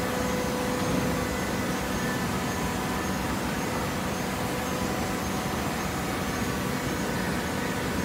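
Automatic horizontal hydraulic baler running: a steady machine drone with a faint whine held on one pitch.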